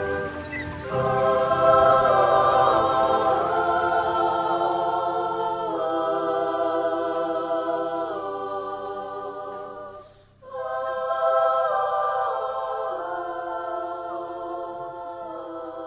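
Background music of wordless, choir-like vocal chords, held and shifting every few seconds, that break off briefly about ten seconds in and then start again.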